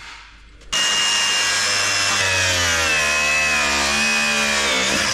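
A Milwaukee cordless angle grinder starts about a second in and cuts through a seized, rounded-off bolt. It gives a loud, steady whine whose pitch dips as the disc bites, then stops at the very end.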